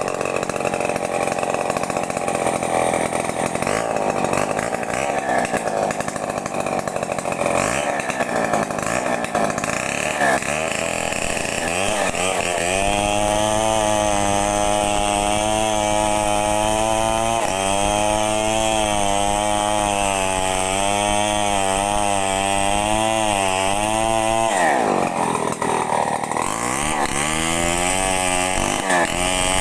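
Stihl two-stroke chainsaw running at high revs while cutting a coconut palm trunk, its engine note wavering and dipping as the chain loads up. About 25 seconds in the pitch drops sharply and climbs back, and dips once more near the end.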